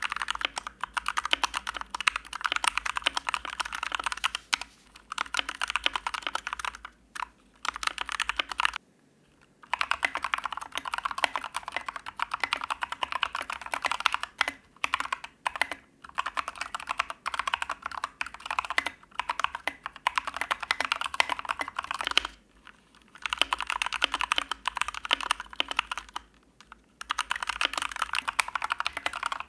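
Mechanical keyboard with Otemu Brown switches and tall SA-profile keycaps being typed on fast and continuously. The typing comes in long runs, with short breaks about nine seconds in and again about twenty-two seconds in. It has a slightly hollow sound, which the typist puts down to the tall caps leaving more space inside the keys.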